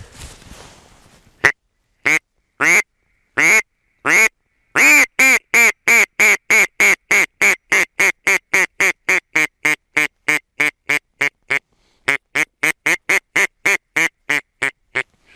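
Mouth-blown duck call imitating a hen duck's quacking, used to call ducks in to decoys: a few single quacks, then a long quick run of quacks that shorten and fade, a brief pause, and a second fading run.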